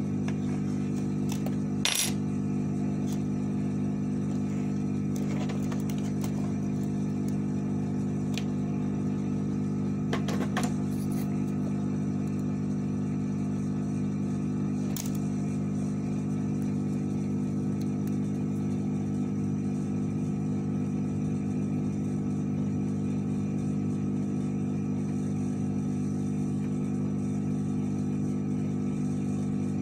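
Steady hum of a small electric motor or fan, the running bench equipment of a soldering repair, with a few light clicks of tools on metal about two, ten and fifteen seconds in.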